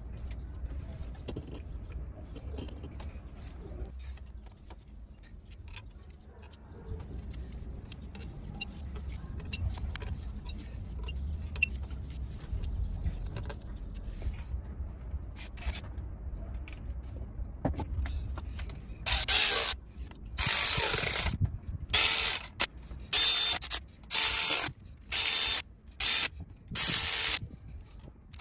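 Cordless electric ratchet run in short bursts, about eight pulses over the last third, driving bolts on the cylinder head of a Peugeot/Citroën 1.6 HDi diesel. Before it come light metallic clinks of hand work on the head over a low rumble.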